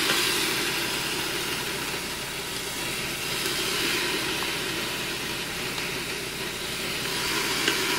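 Pineapple rings sizzling as they are laid with tongs onto a hot grill grate coated with rendered Spam pork fat in a Ninja Foodi, a steady hiss.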